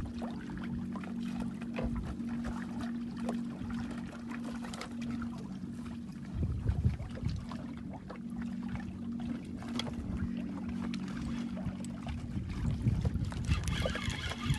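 Boat engine running steadily with a low hum, under water and wind noise that swells a few times.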